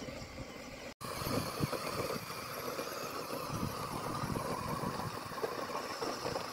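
Cub Cadet XT1 riding lawn mower's engine running steadily as the mower is driven across the grass.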